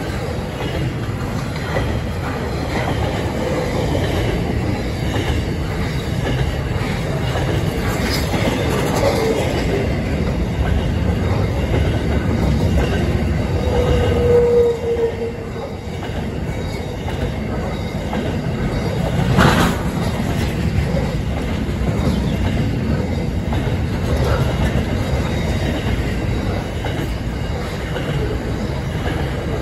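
SCT intermodal freight train's container flat wagons rolling past: a steady rumble and clatter of wheels on the rails, with short wheel squeals now and then, the clearest about halfway through. One sharp knock comes about two-thirds of the way through.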